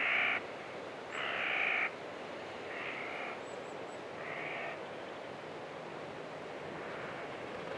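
Corvid cawing over a steady wind-like hiss of desert ambience: four harsh caws in the first five seconds, each fainter than the last, with a couple of faint high chirps in between.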